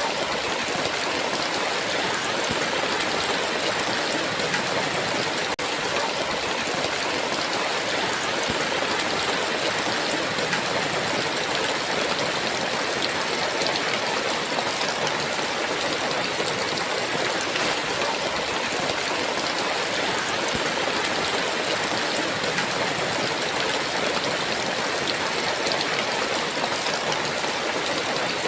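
Heavy, steady rain, a dense, even hiss of a downpour with no thunder.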